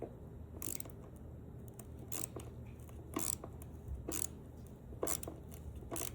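Mini hand ratchet turning a steel threaded insert into the wood, a short scraping click about once a second as the handle is swung back and forth.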